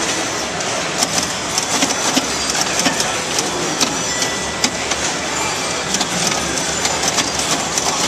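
1952 Gottlieb All Star Basketball electromechanical pinball machine in play: irregular sharp clicks and clacks of its bumpers, relays and flippers over the steady din of a hall full of other pinball machines.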